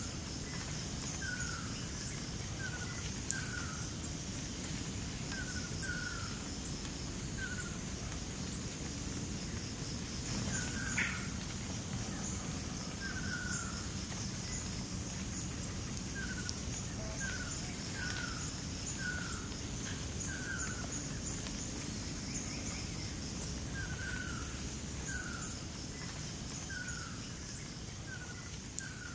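Forest ambience: a bird repeats a short falling note roughly once a second in irregular runs, over a steady high chirring of insects and low background noise.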